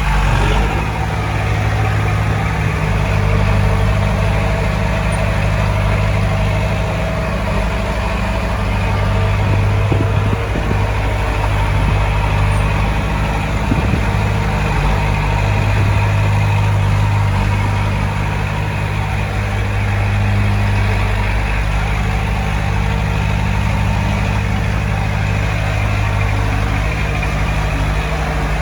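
Diesel engine of heavy earthmoving equipment running steadily, its note swelling and easing every few seconds, with a couple of brief knocks near the middle.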